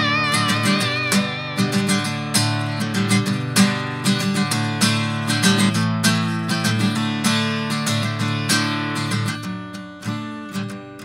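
Steel-string acoustic guitar strummed in a steady rhythm, close-miked with a Presonus PD-70 dynamic microphone; it gets quieter in the last second or so.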